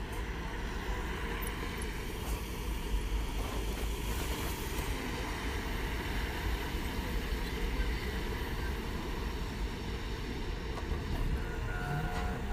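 Steady low rumble of city street traffic, cars passing across an intersection. Near the end a faint steady whine joins in.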